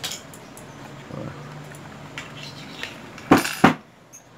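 A 49cc two-stroke pocket bike engine with its carburetor being handled and shaken by hand, its metal parts clattering and knocking, with two loud knocks close together about three seconds in. The shaking is a check that the carb flap moves freely and is not stuck.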